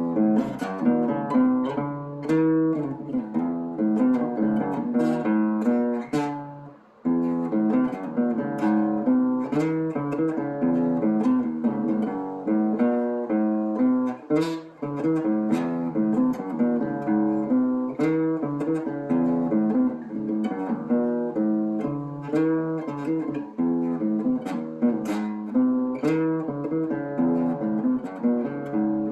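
Acoustic guitar playing an instrumental Latin-style tune with quick plucked and strummed notes, breaking off briefly about seven seconds in before carrying on.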